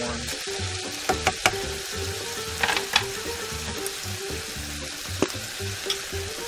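Diced chicken and onion sizzling in a frying pan as the chicken browns, stirred with a plastic slotted spatula that gives several short knocks and scrapes against the pan in the first three seconds and once more about five seconds in.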